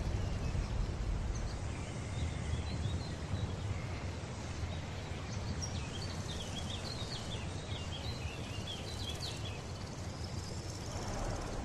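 Outdoor ambience: birds chirping over a steady low rumble. The chirping is busiest past the middle and dies away before the end.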